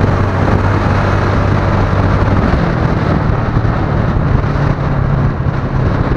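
Small motorcycle engine running while riding, with wind rushing over the microphone. The engine note steps up in pitch about two and a half seconds in as the bike speeds up.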